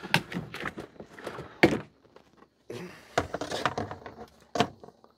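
Snap-on plastic lid of a heavy-duty storage tote being unlatched and pulled off: a series of plastic clacks and knocks, the loudest about a second and a half in and another near the end.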